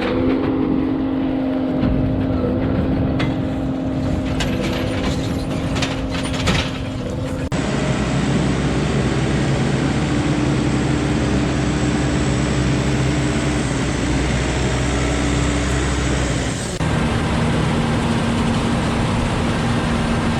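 Large farm machine's engine running steadily under load, with some rattling in the first part. The sound changes abruptly twice as shots are cut together.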